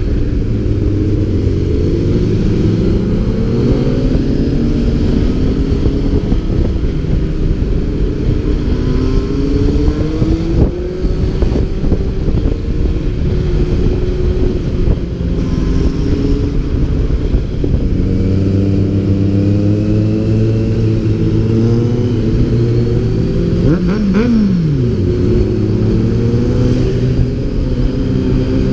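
Honda CB600F Hornet inline-four engine on the move, its pitch climbing under acceleration and dropping back at each gear change, over and over. About three-quarters of the way through, a quick rev rises and falls sharply.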